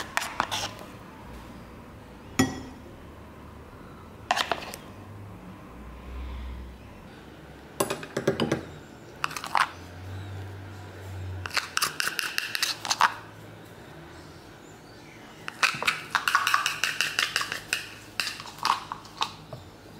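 A spoon clinking and scraping against dishes in several short runs of quick taps, as whipped dalgona coffee is scooped and dropped onto milk in a glass.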